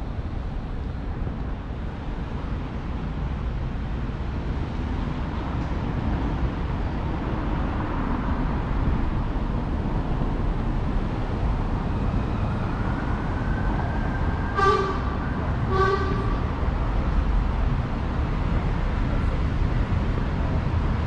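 Steady rumble of passing road traffic, with two short horn toots about a second apart past the middle.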